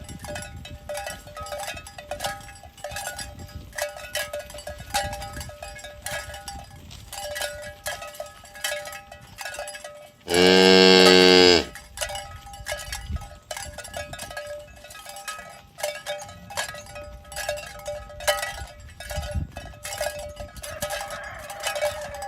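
Bells on a herd of walking cattle clanking and ringing irregularly, with one loud cow moo about halfway through that lasts over a second.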